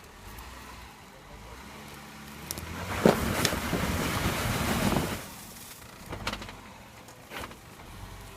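Jeep Wrangler JKU Rubicon crawling over rock: the engine running low, then about three seconds in a sharp knock and two seconds of louder, rough noise as the Jeep works up the rock, easing back, with a couple of single knocks after.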